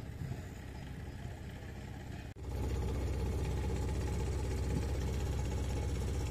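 An engine idling steadily: a low, even hum that comes in abruptly about two seconds in, after a fainter low rumble.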